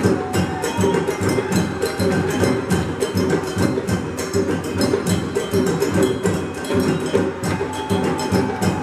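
A large ensemble of hand drums, djembes among them, played together in a fast, dense, steady rhythm.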